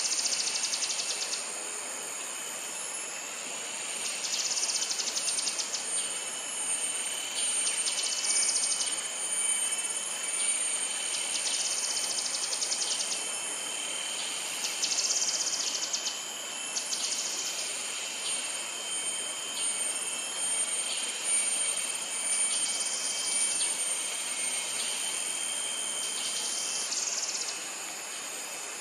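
Outdoor wildlife ambience: a constant high-pitched insect drone, with short, very rapid high trills about a second long repeating every few seconds.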